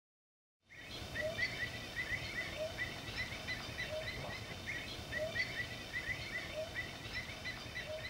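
Birds calling over steady background noise, starting under a second in after silence: many quick, short high chirps several times a second, with a lower single note about every second and a half.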